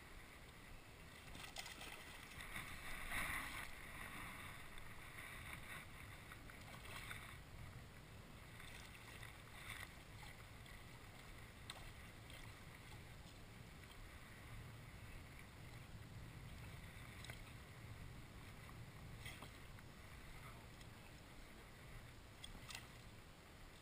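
Quiet sounds from a fishing boat: faint water noise against the hull while a hooked fish is played at the surface, with a short louder splash-like burst about three seconds in and a few faint clicks later on.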